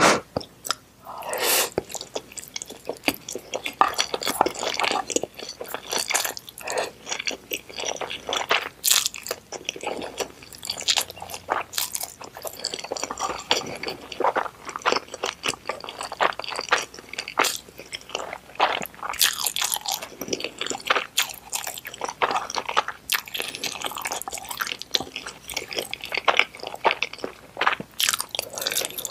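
Close-miked chewing of a mouthful of saucy instant noodles: irregular wet smacks and clicks of the mouth.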